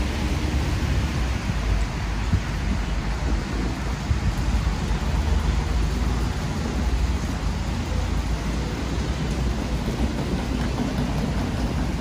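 Heavy rain falling steadily, a dense hiss with a deep, steady rumble underneath.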